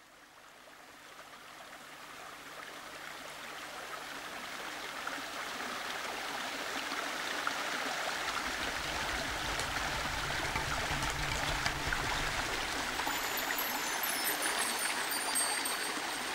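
Small mountain stream running over stones, a steady rush of water that fades in over the first few seconds and grows louder.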